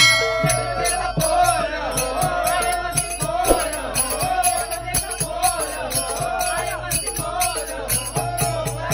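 Men singing a Marathi gavlan devotional song in chorus, with small brass hand cymbals (taal) struck in a steady rhythm.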